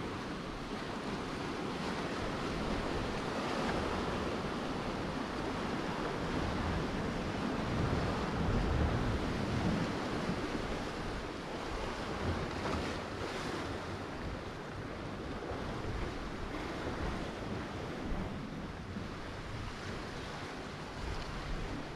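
Sea surf washing onto the shore, a steady rushing noise that swells about eight to ten seconds in, with wind buffeting the microphone.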